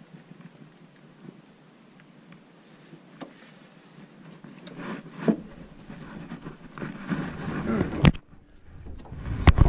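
Close handling noise as hands work a trotline around a tree root: scattered light ticks at first, then louder irregular rustling and knocks from about halfway, with a few sharp clicks near the end.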